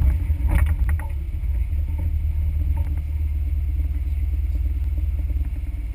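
Suzuki Samurai 4x4 engine running with a steady low rumble, with a few clattering knocks in the first second.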